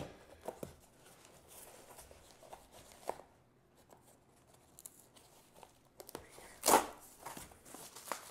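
A cardboard parcel being torn open by hand: packing tape and brown wrapping peeled off, with small rustles and crackles and one loud, short rip about two-thirds of the way through.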